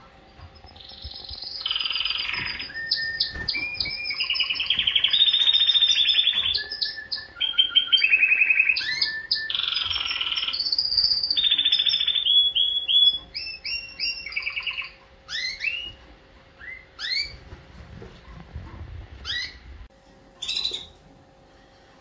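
Domestic canary singing: a long run of fast, rolling trills that change pitch from one to the next, then a string of separate short rising chirps in the second half.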